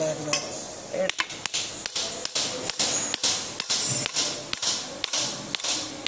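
Hand hammer striking a steel shaft and sprocket, a steady run of sharp metal blows about two or three a second, starting about a second in, each with a short ring.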